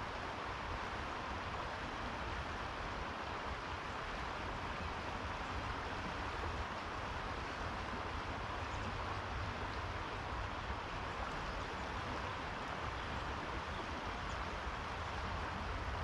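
Steady outdoor ambience: an even rushing hiss with a low rumble underneath, unchanging throughout, with no distinct events standing out.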